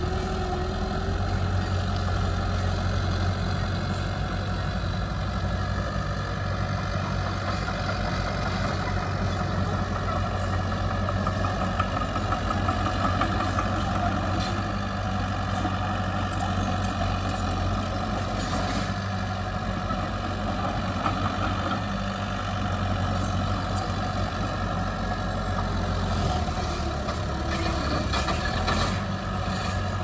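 Heavy diesel engines of construction machinery, a bulldozer and dump trucks, running steadily. Faint clinks and clicks come now and then, mostly in the second half.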